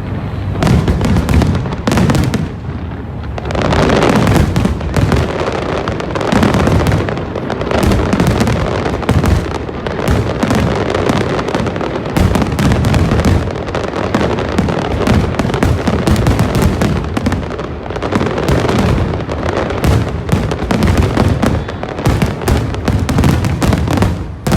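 A big fireworks display going off continuously: dense, overlapping bangs and booms with crackling bursts, no gaps between them.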